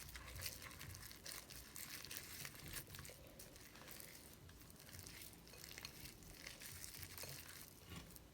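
Faint, quick crinkling and crackling as stiff Elmer's cloud slime, thick with instant snow, is mixed right after more activator has gone in.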